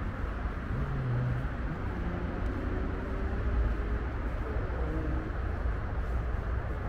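Steady rumble of distant road traffic, with a few faint passing engine tones in it.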